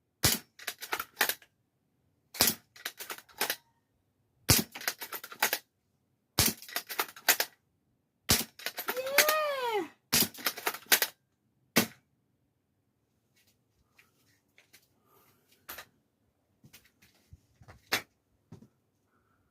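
Tokyo Marui VSR-10 bolt-action spring airsoft rifle firing seven times, about every two seconds, each sharp shot followed by a quick run of clicks as the bolt is cycled. After the last shot only faint scattered handling clicks are heard.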